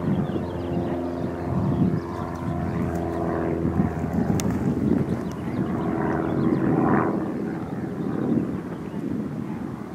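A steady engine drone holding an even pitch, over wind noise. It fades about four seconds in and comes back briefly around six to seven seconds.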